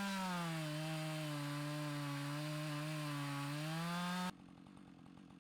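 Chainsaw in an Alaskan-style chainsaw mill running under load as it rips a log into planks, its engine pitch wavering up and down. The sound cuts off suddenly about four seconds in.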